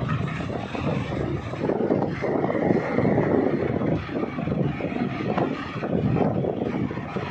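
Tugboat engine running steadily alongside, a low, continuous rumble, with wind buffeting the microphone.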